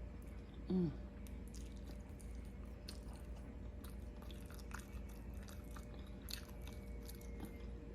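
Close-up chewing and gnawing of an oxtail off the bone: a string of small wet mouth clicks and bites, with a short 'mm' from the eater about a second in.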